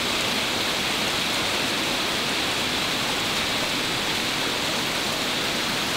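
Heavy rain falling in a steady downpour, an even hiss with no breaks.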